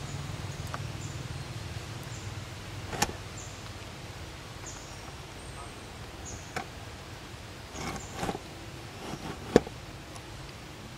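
Outdoor ambience: a short, high, falling chirp repeats about once a second, with a low rumble in the first couple of seconds. Several sharp clicks or taps break in, the loudest near the end.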